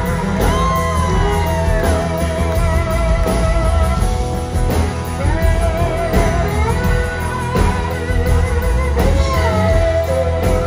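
Live country-rock band playing, with bass, drums and acoustic guitar under a lead line that bends and wavers in pitch.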